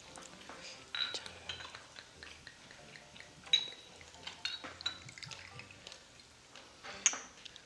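Several sharp glass clinks with a short high ring, as a glass soju bottle and small shot glasses knock together while soju is poured. Under them, a low sizzle of pork belly on the tabletop grill.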